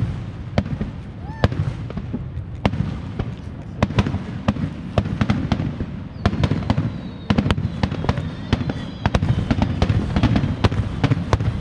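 Aerial fireworks bursting: many sharp bangs and crackles in quick, irregular succession over a low rumble.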